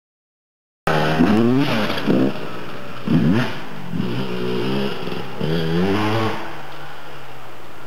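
1999 Honda CR125's single-cylinder two-stroke engine revving up and down as the motocross bike is ridden, starting about a second in with several rising and falling rev sweeps, then settling into a steadier, quieter drone near the end.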